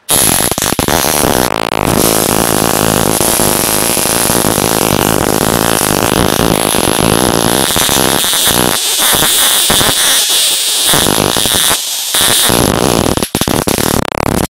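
High-voltage arc from a 1000 kV inverter module discharging across an LED lamp's circuit board: a loud, harsh electrical buzzing crackle. Past halfway it stutters on and off in short breaks.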